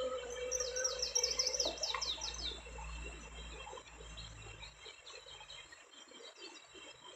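A small songbird singing a quick run of about ten high, downslurred notes in the first few seconds, with fainter bird notes scattered after it.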